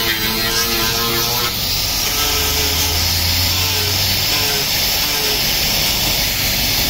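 Electric angle grinder with an abrasive disc running steadily while it sands carved wood.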